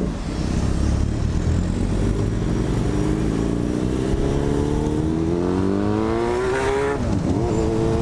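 Yamaha FZ6 inline-four engine with an aftermarket carbon exhaust, accelerating on the road: its pitch climbs steadily for several seconds, drops sharply about seven seconds in at an upshift, then holds.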